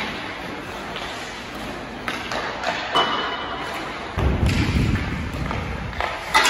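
Ice hockey drill sounds: skates scraping the ice and sharp stick-and-puck hits, with a short pitched ping about three seconds in and a loud knock with a brief ring near the end.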